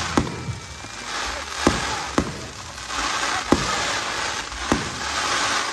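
Fireworks going off overhead: small aerial shells launching and bursting. About five sharp bangs come at irregular gaps of roughly one second, with a steady hiss between them.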